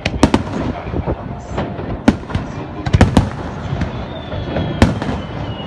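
Aerial firework shells bursting overhead in quick succession: several sharp bangs, the strongest about two, three and five seconds in, over a continuous crackle from the display.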